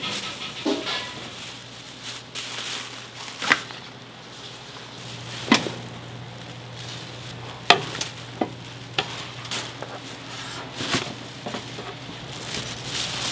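Kitchen food-prep sounds: a steady sizzling hiss over a low hum, with sharp clacks and knocks of utensils at irregular moments, about a dozen in all.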